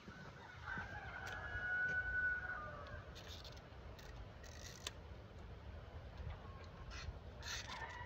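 A rooster crowing: one long call starting about a second in, with a shorter call starting near the end, over a steady low wind rumble.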